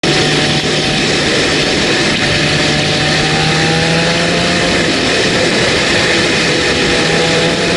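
Heavy wind rush over the microphone of a motorcycle riding at road speed, with the bike's engine running underneath as a steady low drone whose pitch creeps slightly upward.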